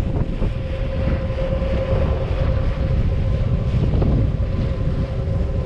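Wind buffeting the microphone over the steady drone of a party boat under way, with an even hum from its machinery.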